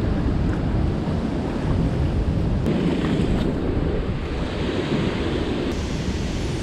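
Steady rush of fast-moving river water below a dam spillway, with wind buffeting the microphone.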